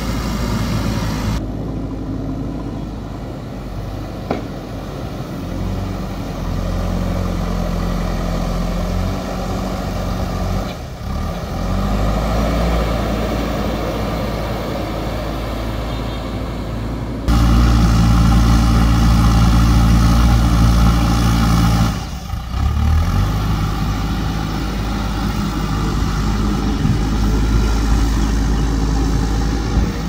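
JCB 3DX backhoe loader's diesel engine running steadily as the machine drives with a loaded front bucket. The engine sound changes abruptly a few times, getting louder about 17 seconds in.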